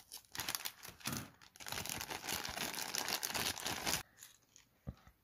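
Thin plastic toy bag being cut open with scissors and crinkling as it is handled for about four seconds, then a single light click near the end.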